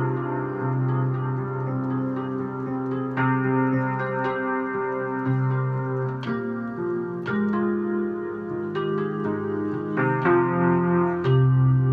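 Digital piano played solo: slow, held chords over a bass note, a new chord struck every second or two.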